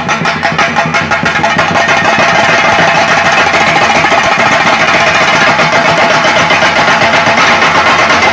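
Several chenda, the cylindrical drums of Kerala, beaten fast with sticks in a loud, dense roll of strokes. It builds over the first couple of seconds and then holds steady.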